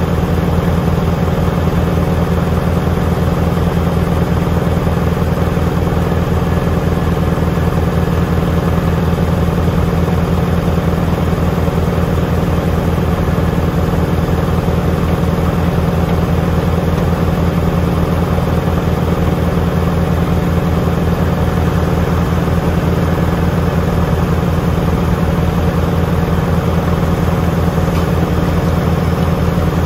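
Tractor diesel engine running steadily at a constant speed, an even deep engine note with no change.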